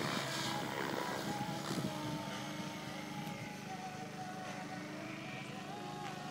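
SAB Goblin 700 electric RC helicopter in flight: a steady whine from its motor and rotor blades that wavers slightly in pitch and grows fainter over the first couple of seconds as it climbs away.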